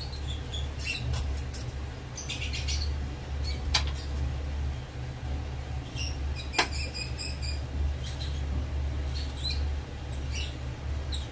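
Watery semolina mixture with ghee heating toward the boil in a kadhai, bubbling with scattered small high-pitched pops and squeaks and two sharp clicks, over a steady low hum.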